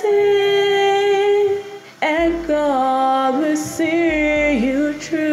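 Outro jingle: a woman sings long held notes over a soft backing track, one sustained note, then a second phrase that steps up and down in pitch.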